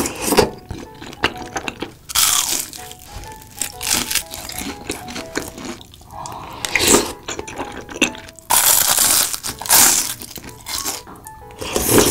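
Close-miked eating of soupy tteokbokki: loud slurps of the spicy broth and wet, crunchy chewing, coming in bursts every couple of seconds. A light background tune of short notes plays under it.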